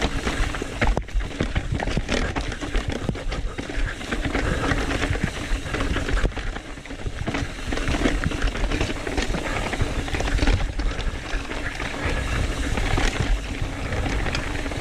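Trek Fuel EX 7 full-suspension mountain bike descending a rocky, technical trail: a constant rumble from the tyres over rock, broken by many sharp knocks and clattering rattles from the bike as it hits rocks and drops.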